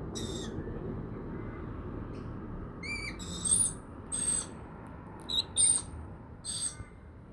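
Lorikeets giving short, shrill screeching calls, about seven of them, most in the second half, over a low steady rumble.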